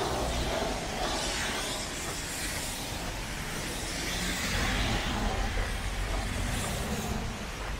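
Road traffic on a city street: a steady wash of tyre and engine noise from passing vehicles, swelling and easing as they go by.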